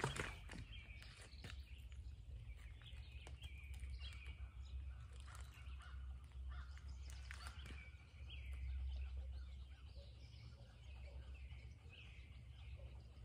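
Small birds chirping on and off over a steady low rumble, with a short sharp sound right at the start as a handline is cast.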